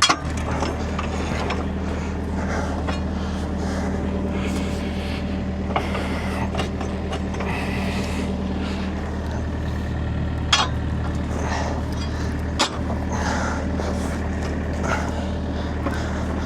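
Kobelco excavator's diesel engine idling steadily, with a few sharp metallic knocks from work on the track and idler, the loudest near the start and about two-thirds of the way through.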